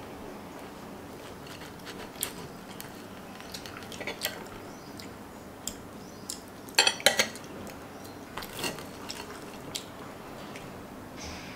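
Metal fork and knife clinking and scraping against a ceramic plate while cutting through toast and poached egg, in scattered sharp taps with the loudest cluster of clinks about seven seconds in.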